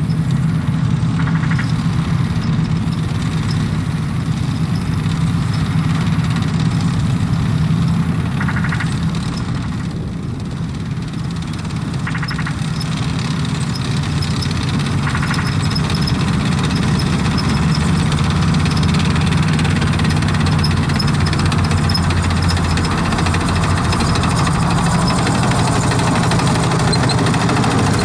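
Several tracked Ulan infantry fighting vehicles driving across open ground, their diesel engines running in a steady drone. The drone grows louder towards the end as one vehicle comes up close.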